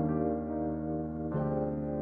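Background music: soft piano or electric-piano chords, each held and ringing, with a new chord struck about a second and a half in.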